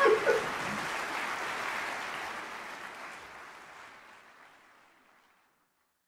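Audience applause, with a few brief voices at the start, fading away over about five seconds.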